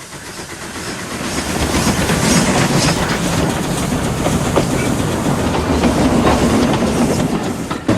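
A train running on rails with the clickety-clack of its wheels, fading in over the first two seconds and cutting off suddenly near the end.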